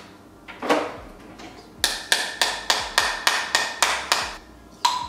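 A butter knife tapping a jar lid about four times a second for a couple of seconds, then once more, to loosen a lid that won't open.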